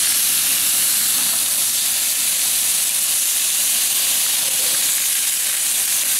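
Tri-tip steaks sizzling steadily on a hot ridged grill plate over a propane camp stove, a constant frying hiss.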